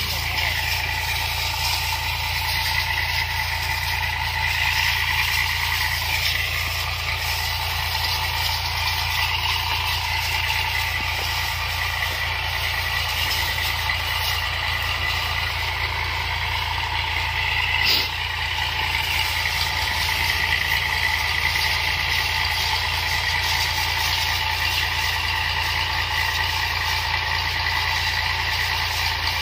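Engine of a power sprayer running steadily, with the hiss of the spray jet from the hose lance. There is a single sharp click about two-thirds of the way through.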